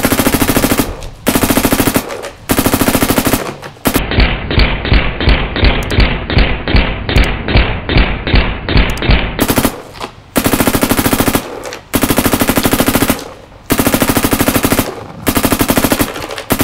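Virtue Ace Luxe X electronic paintball marker firing in burst mode at about 15 balls a second, in strings of roughly a second separated by short pauses. For several seconds in the middle the sound changes to slower, evenly spaced duller thumps, about three a second.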